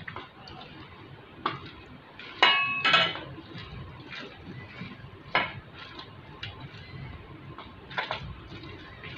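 Boiled jackfruit being mashed by hand in a stainless steel bowl: a soft, continuous squishing with scattered metallic knocks as the bowl shifts. The loudest knock, about two and a half seconds in, rings briefly.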